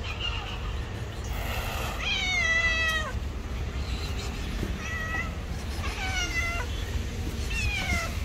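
A street cat meowing four times, each meow falling in pitch; the first is the longest and loudest, and the last three are shorter and come closer together. A low rumble of city traffic runs underneath.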